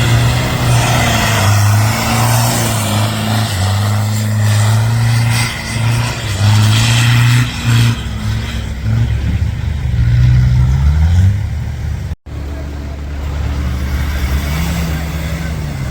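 Off-road 4x4 vehicle engines running and revving, the pitch rising and falling repeatedly. After a brief drop-out about twelve seconds in, a steadier engine note runs on with one slow rise and fall.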